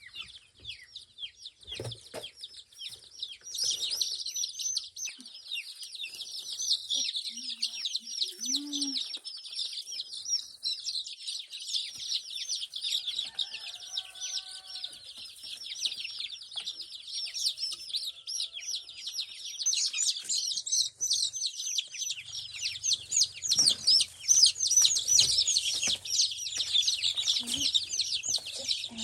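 A flock of chickens calling all at once: a dense, high-pitched chatter of many overlapping cheeps and clucks that grows busier about four seconds in and again around twenty seconds.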